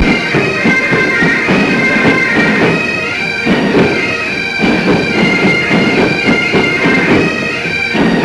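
Great Highland bagpipes playing a march tune over their steady drones.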